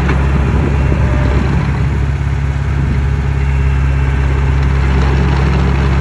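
1992 Komatsu D20P-7 bulldozer's diesel engine idling steadily.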